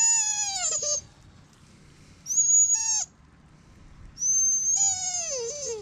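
Dog whining three times, each whine about a second long and falling in pitch.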